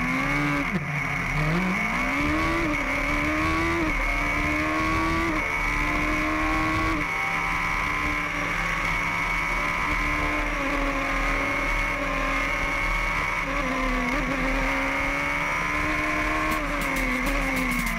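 Racing car engine at high revs accelerating up through the gears: the pitch climbs and drops sharply at each quick shift, every second or two for the first seven seconds, then the engine holds a fairly steady high note with small dips.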